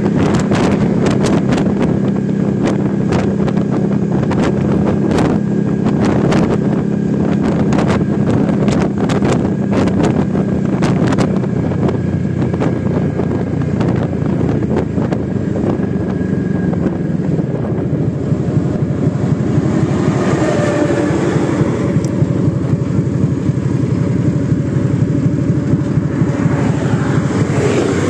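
Suzuki Intruder Volusia VL800's V-twin engine running at highway speed, with wind noise on the microphone. There are sharp clicks through the first half, and about halfway through the engine note drops lower as the bike slows.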